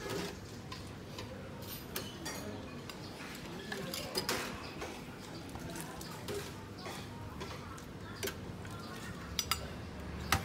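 Metal slotted spoon and ladle clinking against a steel soup pot and a bowl as meatballs and tripe are scooped out of the broth. The clinks and taps are scattered over steady background noise, with a quick cluster of sharper clinks near the end.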